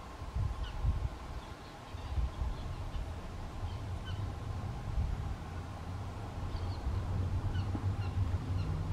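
Outdoor ambience of scattered short, high bird chirps over an uneven low rumble of wind and handling noise on the microphone, with a faint steady hum underneath.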